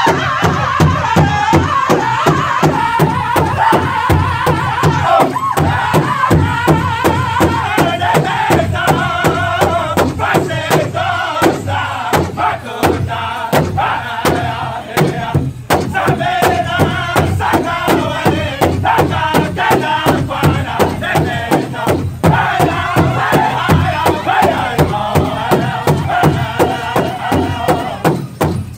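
Powwow drum group singing together in a chant while beating a large shared drum with sticks in a steady, fast beat, with a brief break about halfway through.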